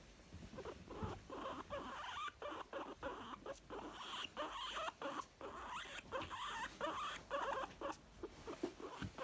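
Young female guinea pig making contented sounds: a run of short, quick calls close together, with a few light clicks among them.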